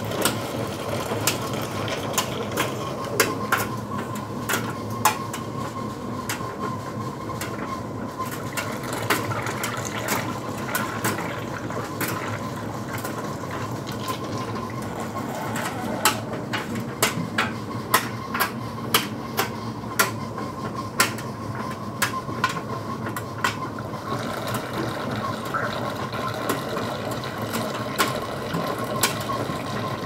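Electrolux heat pump condenser dryer running a cycle with a steady hum, while water poured into its open top trickles and splashes to test the drain pump. Sharp irregular clicks sound throughout, thickest in the middle.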